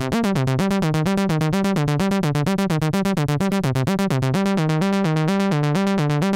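Electronic music loop of fast repeated keyboard-like notes over a bass line stepping up and down, with no hiss under it. This is the sum of a positive and a polarity-reversed copy of the track, each carrying the same white noise, so the noise has cancelled and the music plays louder than the original.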